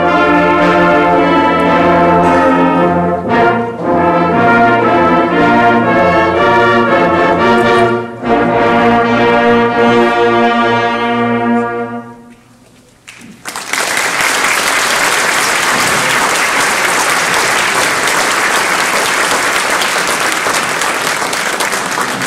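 School concert band with a full brass section (trombones, trumpets, saxophones, tuba) playing the last bars of a show tune, with two short breaks and a final long held chord that cuts off about twelve seconds in. After a short pause the audience breaks into sustained applause.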